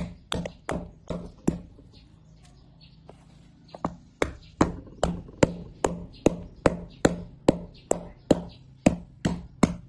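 A wooden pestle pounding lemongrass stalks against a bamboo cutting board to mash them, in steady blows about two or three a second. The blows stop for about two seconds shortly after the start, then go on.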